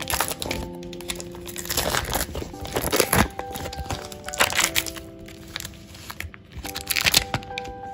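Foil-lined wrapper of a block of cream cheese crinkling and tearing as it is peeled open by hand, in several sharp crackly bursts, over soft background music.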